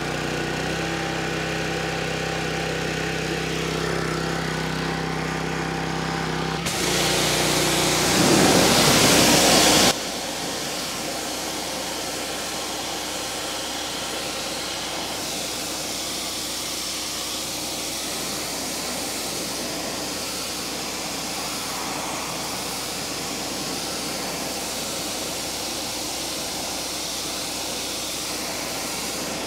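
Generac gas pressure washer's small engine running steadily; about seven seconds in, a loud rush of spraying water joins it for about three seconds. Then the sound changes suddenly: the engine note drops out, leaving a steady, quieter hiss.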